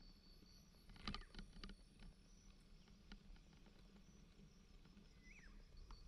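Faint rattling and clicking of a bicycle jolting over a bumpy dirt track, with a cluster of sharper rattles about a second in. Near the end there is a single short bird chirp.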